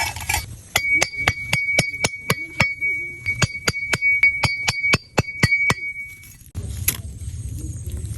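A rapid series of sharp clinking strikes, about twenty at roughly four a second, over a steady high ringing tone. They stop about six seconds in and give way to a low rumbling noise.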